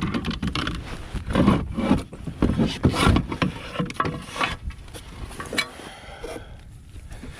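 Irregular rubbing and knocking against a kayak while a just-caught bass is handled, busiest in the first five seconds and thinning out after.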